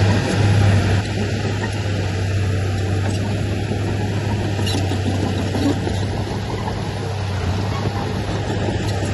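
Diesel engine of heavy earthmoving machinery (a bulldozer or dump truck) running steadily with a low, constant drone.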